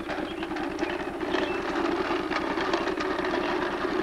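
Plastic toy bubble lawn mower rattling and clicking quickly as it is pushed over a concrete driveway, over a steady hum.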